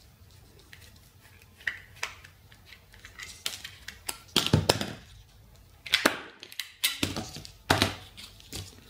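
Black plastic case of a small battery-powered electroluminescent driver being unscrewed and prised apart by hand: a run of sharp plastic clicks and snaps, louder and more frequent in the second half.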